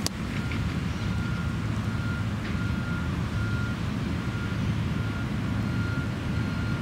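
Reversing alarm on a vehicle, one high tone beeping over and over at a steady pace, over a steady low rumble.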